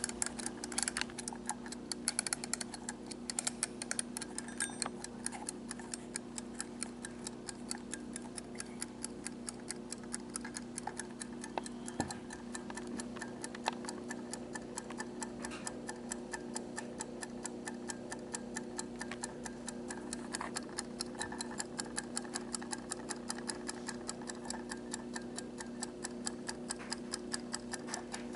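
Wind-up tomato kitchen timer ticking steadily as its clockwork counts down after being set, a fast even run of small clicks.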